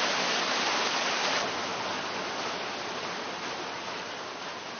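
A steady rushing noise that slowly fades. Its highest part drops away about a second and a half in.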